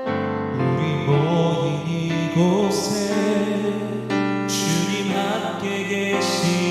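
Contemporary worship band music: the full band enters at the start, with keyboard, bass and drums under a wavering melody line, and cymbal crashes every second or two.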